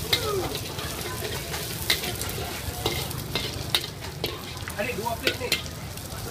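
Egg and prawns sizzling in hot oil in a black wok while a metal spatula stirs and scrapes them, with sharp clinks of the spatula against the wok at irregular intervals, about eight times.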